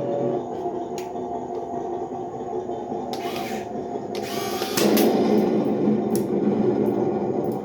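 Small electric motors and gearing of radio-controlled construction machines whining steadily, with two short rasping noises around the middle. The whine grows louder about five seconds in.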